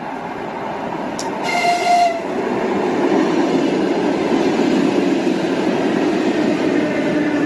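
Russian electric commuter train (elektrichka) approaching, its running noise growing steadily louder, with a short horn blast about a second and a half in. Near the end a whine falls in pitch as the train passes.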